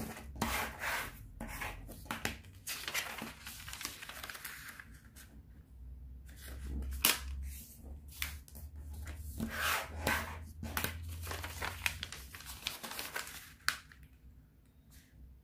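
A square of origami colour paper being folded and creased by hand: stop-start rustling and crinkling as fingers press and slide along the folds, thinning out near the end.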